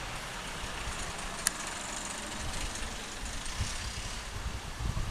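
Steady outdoor background noise, a low rumble under a broad hiss, with one sharp click about a second and a half in.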